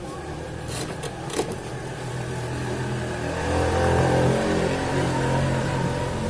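Home theatre speaker giving out a steady droning tone with many overtones, swelling louder about halfway through, after a few clicks near the start. It is plausibly the whistle-like fault noise of the amplifier being repaired.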